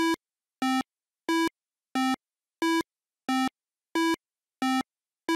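Chiptune-style 8-bit beeps: short square-wave notes alternating high and low, about one and a half a second, in an even, plodding rhythm. It is a slow walking-step sound effect for a tortoise.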